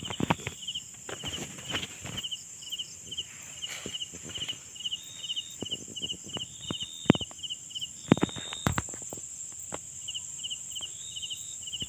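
Night insects: crickets chirping in short, evenly repeating pulsed chirps about three times a second, with a few longer trills, over a continuous high insect drone. Scattered rustles and knocks from movement through the undergrowth, two of them sharp and loud about 7 and 8 seconds in.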